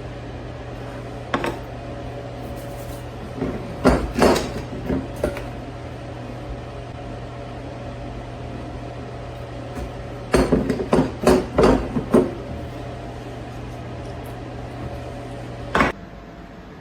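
Kitchen clatter: dishes and utensils knocking and clinking in short clusters over a steady low hum. Near the end there is one louder knock and the hum stops.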